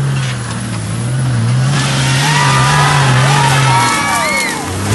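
Off-road Jeep's engine running at steady revs. About two seconds in, a rush of noise and people shouting join it, and the engine note starts to rise again near the end.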